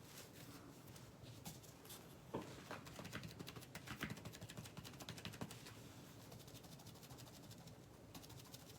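Faint taps and soft rustles of a sponge being dabbed to load paint onto a leaf for stamping, with small handling clicks.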